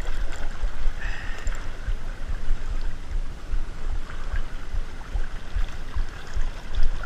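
Wind buffeting the microphone in irregular low gusts, over a wash of sea water lapping against the rocks.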